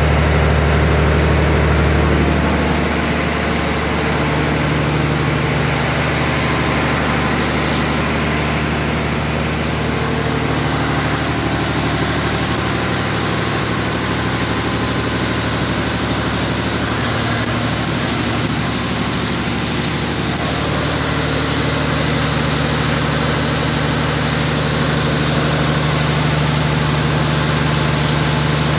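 Wirtgen 1000C cold milling machine's diesel engine running steadily, with its milling drum set turning. The lowest part of the engine note drops back about two to three seconds in and comes up again about twenty seconds in.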